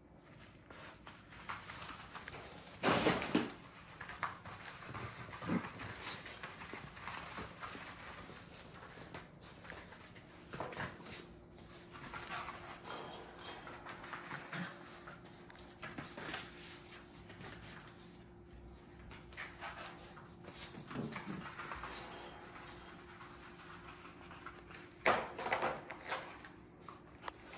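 American bully puppies playing, with scattered short dog noises and scuffles. The loudest burst comes about three seconds in.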